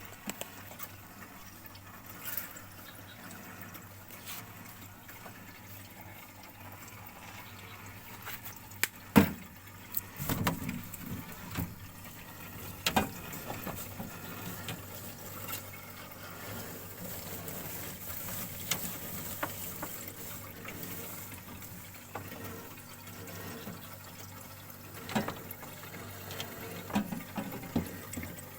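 Refrigerant gurgling and trickling through a Sharp one-door refrigerator's freshly recharged cooling tubing, a liquid sound taken as a sign that a lot of oil is still inside the system. A few sharp knocks and clicks come through it.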